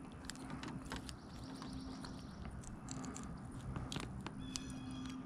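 Scattered light clicks and rattles of fishing reel and tackle while a small bass is brought in and handled, over a faint steady hum.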